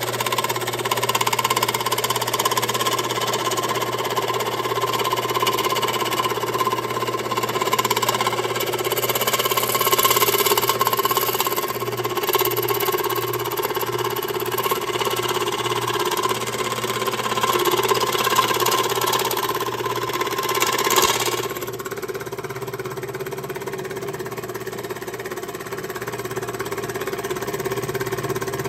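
1950s Delta Rockwell Homecraft scroll saw running steadily, its reciprocating blade cutting through aluminum plate. The high cutting noise gets quieter about three-quarters of the way in while the saw keeps running.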